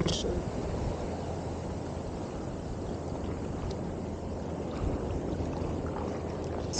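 Surf washing and fizzing around the wader in the shallows: a steady, even rushing noise.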